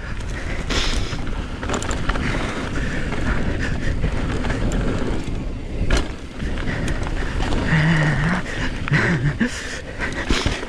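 Downhill mountain bike being ridden down a dirt trail: steady wind rush over the microphone with tyre and frame rattle, broken by a few sharp knocks.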